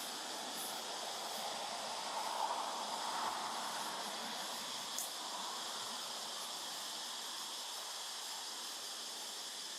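Steady high outdoor hiss of droning insects, with a short faint click about five seconds in.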